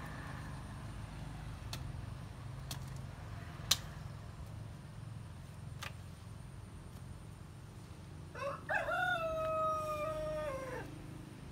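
A rooster crows once, about eight seconds in: a rising start, a long held note and a drop at the end. Earlier come a few sharp knocks, one louder than the rest, over a low steady rumble.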